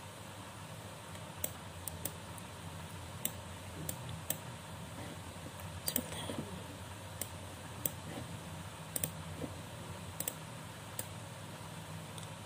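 Irregular sharp clicks from someone working a computer, roughly one a second, some in quick pairs, over a steady low hum.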